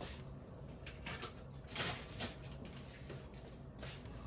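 Kitchen handling noises: a few brief scrapes and light knocks, the loudest about two seconds in, as utensils and cookware are moved around a pot.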